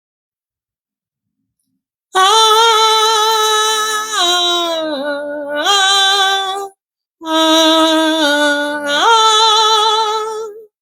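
A woman's solo voice singing slowly in long held notes with vibrato, two drawn-out phrases that slide down and back up in pitch, after about two seconds of silence.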